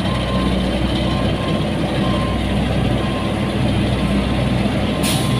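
Asphalt paver's diesel engine running steadily, with a warning alarm beeping at an even pace over it. A short hiss cuts in near the end.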